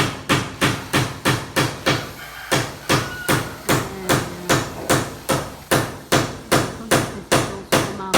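A hand hammer driving nails on the building site, struck in a steady run of about three blows a second, with a brief pause about two seconds in.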